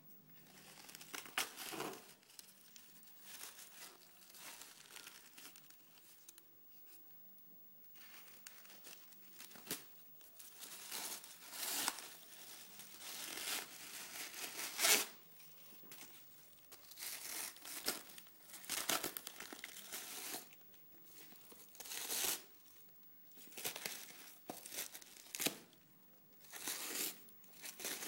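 White packing wrap being torn and crumpled by hand in irregular bursts, with a quieter spell about seven seconds in.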